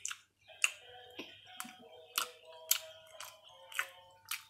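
Background music with a steady ticking beat of about two clicks a second over sustained tones.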